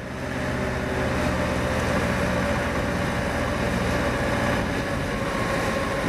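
Engine of a tractor-type lifeboat launch vehicle running steadily as it drives along a road. The sound rises over the first second, then holds level.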